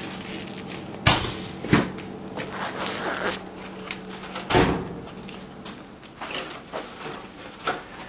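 Several hollow knocks and clunks of things being handled and set down, the loudest about a second in and again around four and a half seconds, over a steady low hum that stops around halfway.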